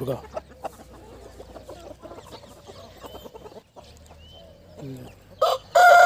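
Domestic chickens clucking quietly, then a rooster crows about five and a half seconds in, a loud, long call that is still going at the end.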